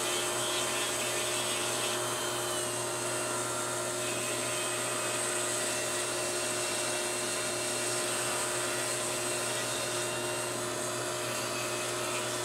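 Foot-pedal-controlled rotary tool with a jewelry burr running at a steady speed with a steady whine, grinding a mould line off a plastic model-kit torsion bar.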